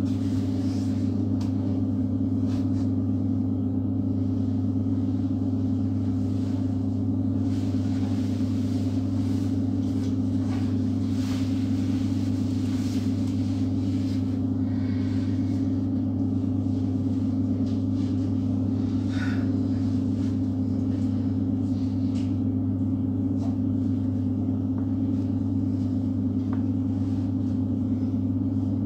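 ER9T electric multiple unit standing still, its electrical equipment giving a loud, steady, unchanging hum with a low and a higher tone.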